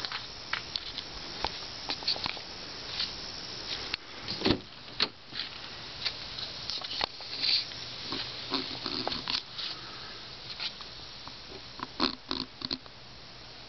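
Close rustling and clicking handling noise at the microphone, irregular throughout, with one louder thump about four and a half seconds in while the car's front door is being opened.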